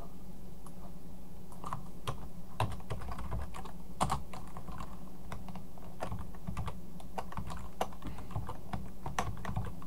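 Typing on a computer keyboard: irregular keystrokes over a steady low hum, as a spreadsheet formula is entered.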